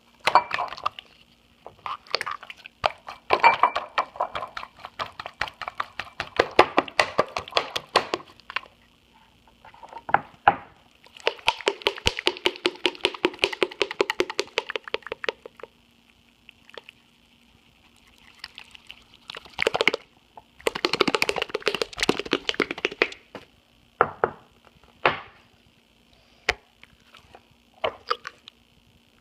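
Slime being squeezed and pressed to make squelchy fart noises: bursts of rapid wet popping, each lasting a second to a few seconds, with short pauses between. A faint steady hum runs underneath.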